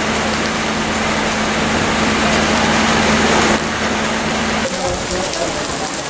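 Heavy rain falling on water and moored wooden boats. Under it runs a steady low hum that stops a little after the middle.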